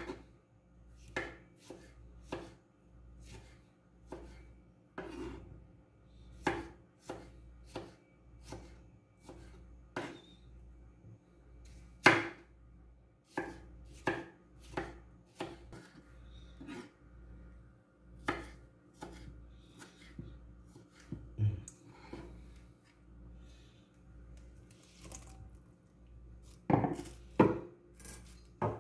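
Kitchen knife cutting tomatoes into wedges on a wooden chopping board: irregular knocks of the blade on the board, about one a second, with one louder knock about twelve seconds in and a run of louder knocks near the end.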